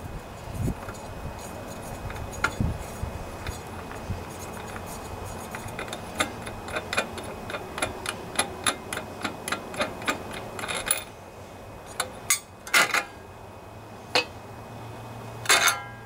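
Small metal clicks and knocks from hands working on a lawn-tractor engine's air cleaner: a regular run of sharp ticks, about three a second, in the middle, then a few louder clatters of metal parts near the end.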